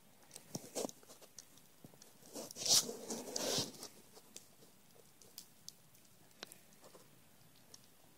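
Yard-waste bonfire crackling, with scattered sharp pops and snaps and a denser, louder flurry of crackling about three seconds in.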